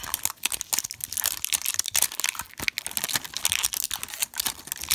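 Crinkly plastic wrap on a LOL Surprise doll ball being picked at and peeled off by fingernails: a dense, continuous run of crackles and small tearing sounds.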